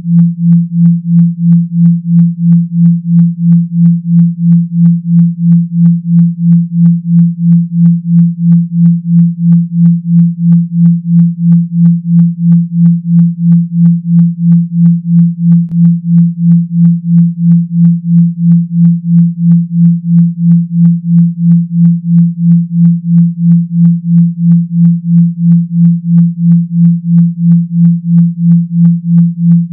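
Synthetic 170 Hz bass hum: a single low tone pulsing evenly about twice a second, with faint higher overtones on each pulse.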